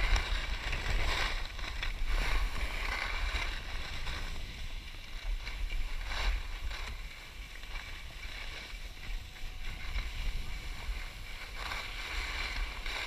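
Skis sliding and scraping over packed snow, the hiss swelling every few seconds as the skier turns, with wind rumbling on the microphone.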